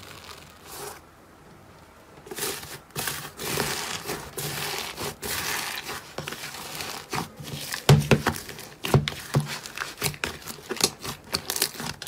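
Iceberg slime with a hardened crust and foam beads being broken up and kneaded by hand: irregular crinkling and tearing of the crust and beads, with sharp crisp crackles coming thick and fast in the last few seconds.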